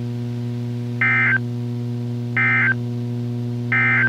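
Three short bursts of warbling two-pitch data tones, about 1.4 s apart: the NOAA Weather Radio SAME end-of-message code, marking the end of the Required Weekly Test. A steady electrical hum runs underneath.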